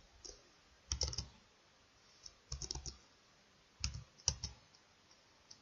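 Computer keyboard and mouse clicks in several short, faint clusters, as a new value is entered.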